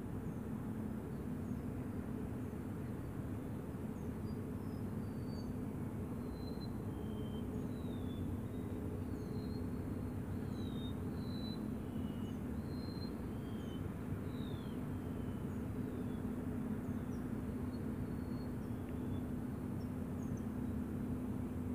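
Small birds chirping in short, high calls, thickest through the middle, over a steady low hum.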